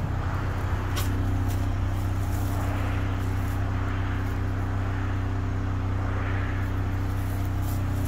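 An engine idling steadily with an even low hum, with a faint tick about a second in.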